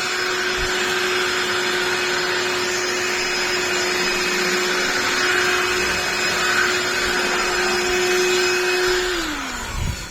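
DeWalt DCV501LN 18V cordless vacuum running steadily with a constant motor whine, then switched off about nine seconds in, its pitch falling as the motor winds down.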